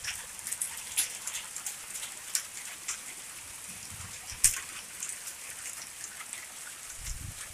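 Heavy rain mixed with hail: a steady hiss with irregular sharp ticks of hailstones striking hard surfaces, one louder strike about four and a half seconds in.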